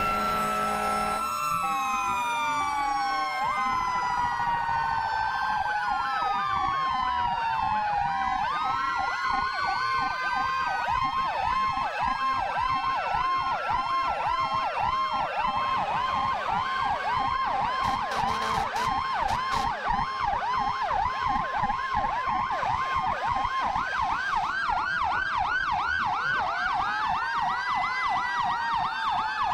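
Several fire apparatus sirens sounding at once, overlapping slow rising-and-falling wails with a fast, rapidly repeating yelp. A steady held tone cuts off about a second in.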